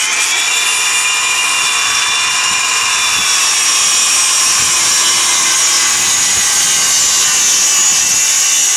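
Circular saw on a guide track running at full speed through a long crosscut in a plywood panel: a steady, loud high-pitched whine over blade-cutting noise.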